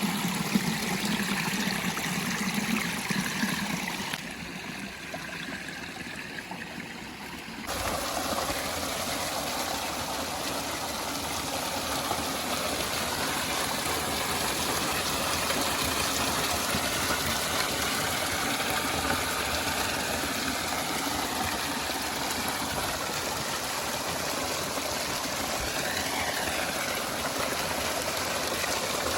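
Waterfall water splashing and running steadily. About four seconds in it drops abruptly to a quieter, thinner rush for a few seconds, then comes back at full strength.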